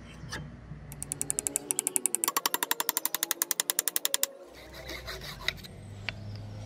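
Hammer tapping on a wooden block set on the top of an axe handle, driving the wedge home: a fast, even run of sharp taps, about a dozen a second. It starts about a second in and stops suddenly a little after four seconds.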